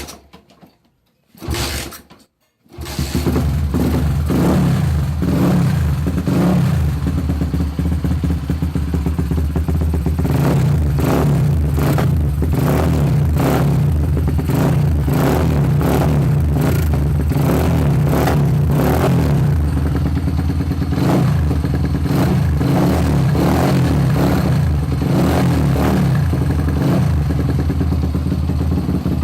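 Honda GL125 motorcycle's single-cylinder four-stroke engine, running on a chainsaw carburettor, catches about two and a half seconds in after a short burst of sound, then runs steadily with frequent short surges.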